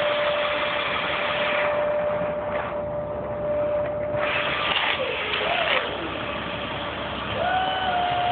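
A machine running steadily, with a steady whine that steps up slightly in pitch near the end.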